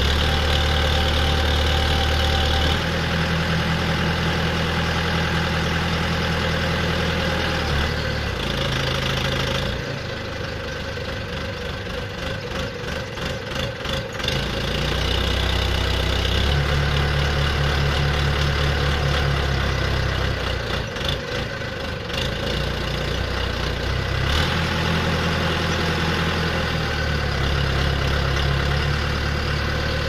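WZ15-10 backhoe loader's diesel engine running while the rear backhoe arm is worked, its note strengthening and dropping back by turns, easing off for a few seconds about a third of the way in and again about three quarters through.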